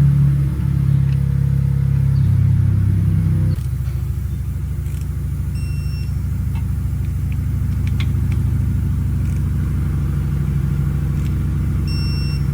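Harley-Davidson V-twin, freshly fitted with Wood TW-222 cams and breathing through Vance & Hines Short Shots exhaust, running after the cam install. It is held at a raised speed for the first few seconds, drops in pitch about two seconds in, and then settles to a steady idle.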